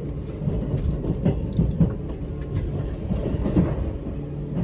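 Cabin noise inside a JR 651 series electric train as it runs out of the station: a steady low rumble with irregular wheel clacks over the rail joints.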